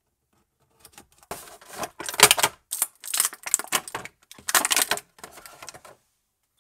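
Toy packaging being opened and handled: a clear plastic blister tray and cardboard box crackling and rustling in a string of uneven bursts, starting about a second in.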